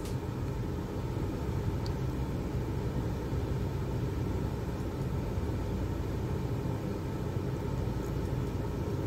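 Steady low background rumble with a hum, unchanging throughout.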